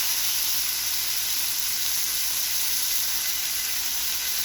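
Thin, olive-oiled chicken breasts sizzling steadily on a hot steel flat-top griddle, searing at high heat.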